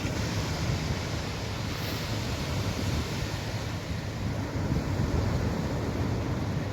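Wind blowing over the microphone with surf washing on a beach: a steady rush with a low rumble and no distinct events.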